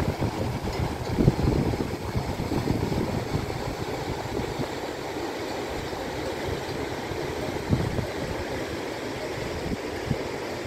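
Wind buffeting the microphone over the steady rush of a white-water mountain river, gusting hardest in the first two seconds.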